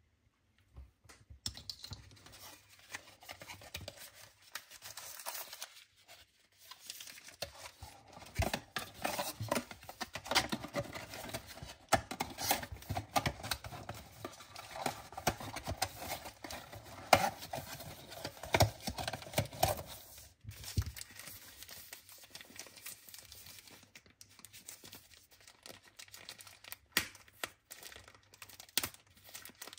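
Watch packaging being torn open and crinkled by hand: a run of irregular rustling, tearing and crackling that starts about a second in, is busiest through the middle and thins out near the end.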